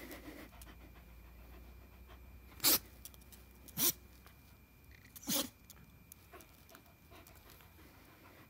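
Shetland sheepdog breathing right at the microphone, with three short, sharp snorts of breath that stand out, about a second or so apart.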